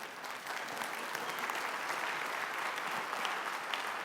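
Assembly audience applauding, a steady swell of many hands clapping that tails off near the end.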